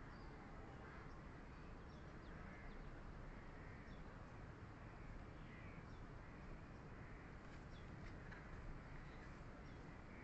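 Faint distant birds calling in short, high chirps every second or two over a low, steady background hum.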